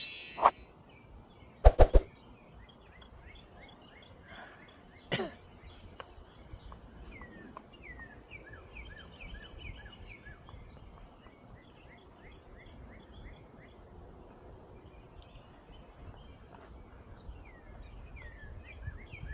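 Birds chirping and singing in repeated short falling notes over a steady high insect drone. A few sharp short clicks sound near the start, about two seconds in, and about five seconds in.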